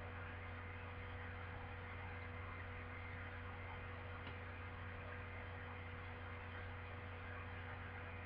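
Steady low electrical hum with a faint hiss underneath, the background noise of the recording. Nothing else stands out.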